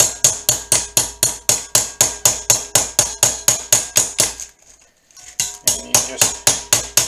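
Small 8-ounce brass hammer tapping quickly and evenly on copper pipe soft jaw covers fitted over the jaws of a 5-inch three-jaw lathe chuck, about four light blows a second, with a faint metallic ring. The blows are forming the copper so it fits tight on the jaws. The tapping stops for a moment about two thirds of the way through, then starts again.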